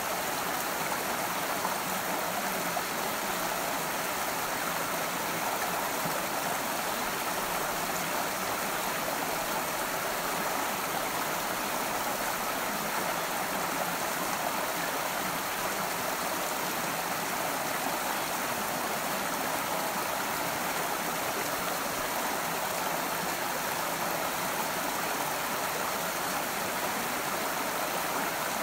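Small rocky forest creek running: a steady, even babble of flowing water over stones.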